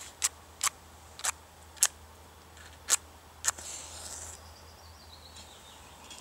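A match struck against the side of a matchbox, about six short scrapes in the first three and a half seconds; the last strike catches, and the match flares with a brief hiss.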